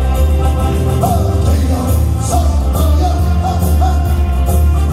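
Loud Korean Christian praise music: a song with a singing voice over instrumental accompaniment and a heavy, steady bass.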